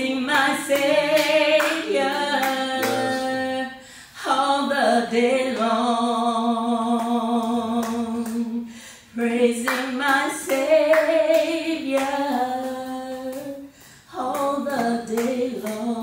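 A woman singing solo with no accompaniment, holding long notes with vibrato in three phrases, with short breaths about every five seconds.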